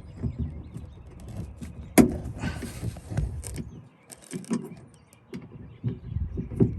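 Hands working inside a Dodge Caravan's door cavity to unhook the window regulator motor's wiring connector: scattered clicks, knocks and rustling, with a sharp click about two seconds in.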